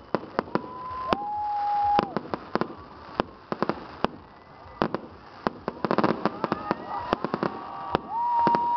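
Fireworks going off overhead: an irregular string of sharp bangs and pops, densest about six seconds in. Two long, steady whistling tones sound over them, one early on and one starting near the end.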